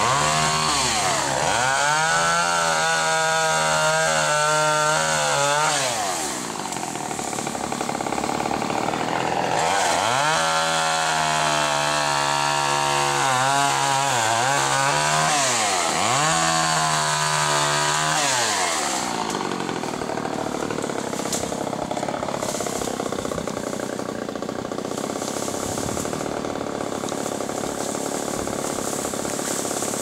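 Husqvarna chainsaw revving to full throttle while cutting pecan limbs. It holds high, eases off about six seconds in, then revs up again for about eight seconds with a couple of brief dips. About two-thirds of the way through it drops back to a lower, steadier running.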